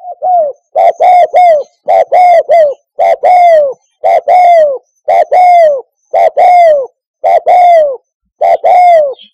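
Spotted dove cooing loudly in a repeated phrase of about one a second. The early phrases have three notes and the later ones two, each phrase ending in a longer coo that falls in pitch.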